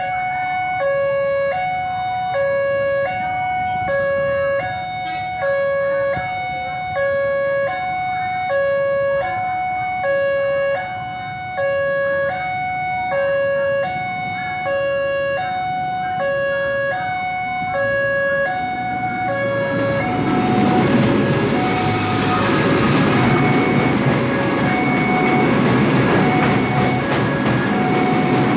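Railway level-crossing warning alarm sounding a steady alternating two-tone signal, about two tones a second. About twenty seconds in, a passing train's rumble and wheel clatter rise and cover it, with the alarm still faintly heard.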